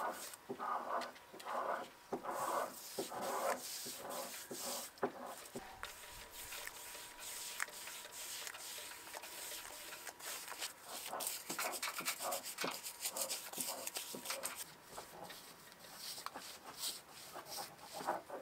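Abrasive hand rubbing strokes on a surface: quick regular back-and-forth strokes for the first few seconds, then denser, uneven scratching.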